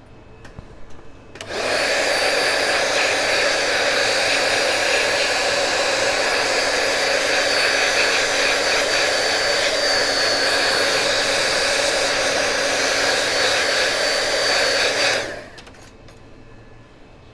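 Hot air rework station blowing steadily for about fourteen seconds, switching on about a second and a half in and cutting off near the end, with a faint steady whine through it. This is the stage of reflowing soldered memory chips on a MacBook logic board.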